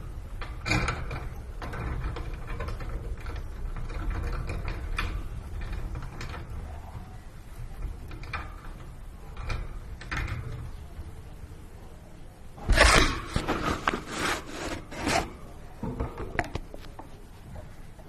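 Rosy-faced lovebirds climbing and nibbling on a hanging toy of wooden beads: steady rubbing and scraping with scattered clicks. About two-thirds of the way through comes a run of loud, short bird calls.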